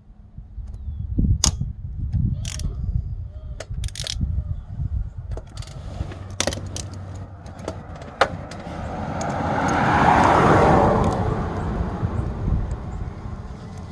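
Metal clinks and knocks of hand tools and engine parts as the timing chain tensioner is worked off a Ford 2.3L Duratec engine, over a low handling rumble. About two-thirds of the way in, a broad rushing noise swells up and fades away.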